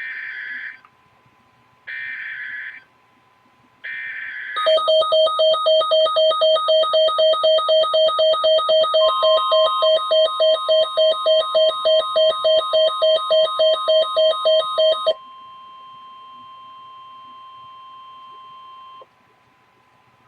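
Emergency Alert System signal. It opens with three short bursts of SAME header data, each under a second and about two seconds apart. Then comes a loud alert attention tone pulsing about two to three times a second for about ten seconds, with a steady tone joining partway through. After the pulsing stops, the steady tone carries on alone, quieter, for about four seconds and cuts off.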